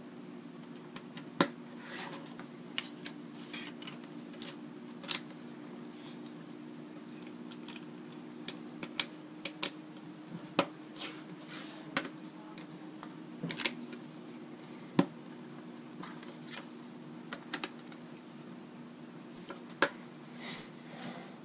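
Plastic LEGO bricks clicking as they are handled and pressed together, in an irregular run of sharp clicks with a few louder snaps. A steady low hum runs underneath.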